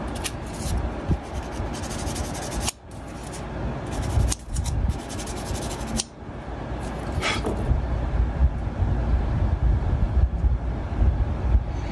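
Close-miked handling noise of scale-model work: hands rubbing and brushing over a cutting mat, with small plastic parts and tools scraping and clicking in quick clusters during the first half, over a steady low rumble.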